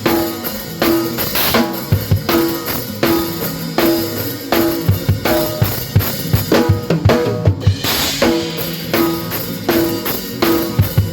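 Live gospel band playing a steady groove: a drum kit's kick, snare and cymbals over keyboards and bass guitar. About seven seconds in, a quick run of drum hits leads into a split-second stop, and the groove comes back in with a cymbal wash.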